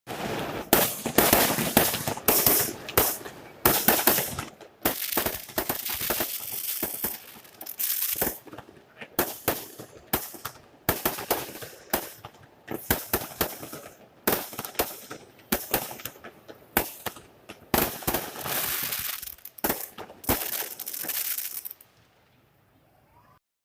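Fireworks going off in rapid, dense volleys of bangs and crackles, with short lulls between clusters. They die down to near quiet about twenty-two seconds in.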